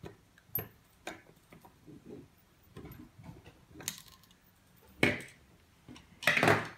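Small metal clicks and ticks of a screwdriver and tool working a bolt loose on a 3D printer's Z-axis carriage block, with two louder clatters of metal on the wooden tabletop about five seconds in and near the end.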